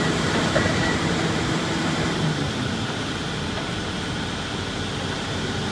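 Komatsu demolition excavator's diesel engine running steadily, a little quieter in the second half.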